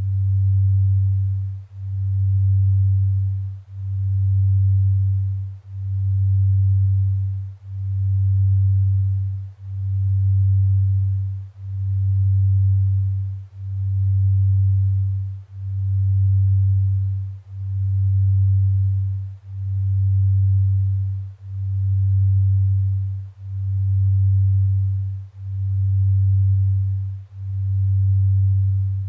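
Binaural-beat sleep tone: a low, steady sine tone near 100 Hz that swells and fades about once every two seconds, over a faint hiss. The slow pulse is meant for delta-wave brainwave entrainment to bring on sleep.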